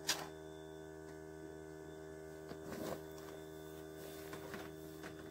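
A nail gun fires once into a wooden birdhouse, a single sharp crack right at the start, over a steady hum. About two and a half seconds in comes a short stretch of rustling handling noise.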